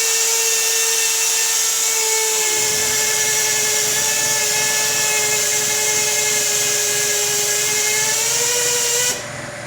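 Power drill used as a mixer, running steadily through cookie dough with a high whine. A lower churning rumble joins about two and a half seconds in, and the drill backs off shortly before the end.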